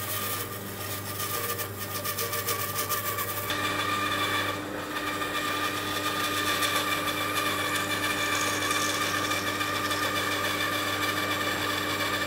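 An old Tanner bandsaw running and cutting through a thick board of reclaimed kauri: a steady motor hum with a higher whine over it that grows stronger about three and a half seconds in, as the blade works into the wood.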